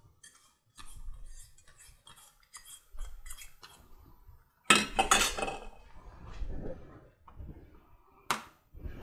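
Kitchen handling sounds: light taps and clinks as chopped mint is knocked from a plastic cup into a steel pot with a silicone spatula. A louder clatter of stainless steel bowls comes about five seconds in, and a sharp clink near the end.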